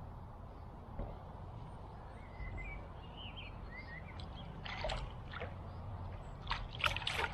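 Outdoor ambience with a low steady rumble of wind and water; a small bird chirps a few times in the middle. Several short rustles and clicks come near the end.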